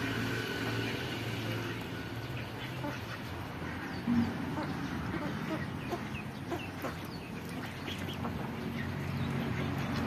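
Poultry clucking and chattering in short, scattered calls over a steady low hum.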